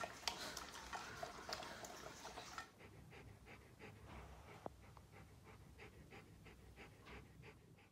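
Akita panting, with quick, even breaths about three a second that start a few seconds in.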